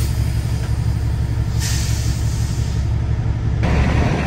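Semi-truck's diesel engine running under a steady low drone, heard from inside the cab, with a brief hiss of air about a second and a half in. Near the end the noise grows louder and rougher.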